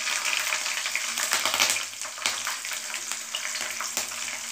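Slit green chillies sizzling in hot oil with cumin seeds, a steady high sizzle full of small crackling pops. It is loudest over the first couple of seconds and eases slightly after.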